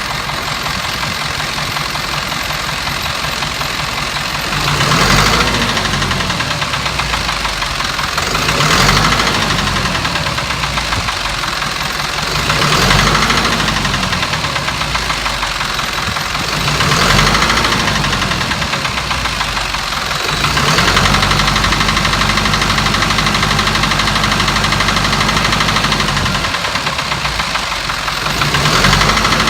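Mitsubishi Fuso 4M50 four-cylinder diesel engine running with an abnormal noise. It idles and is revved briefly about every four seconds, then held at higher revs for about five seconds, and rises again near the end.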